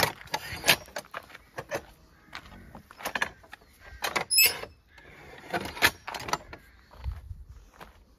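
Irregular clicks and knocks, like small objects or gear being handled, with a short high squeak about four and a half seconds in.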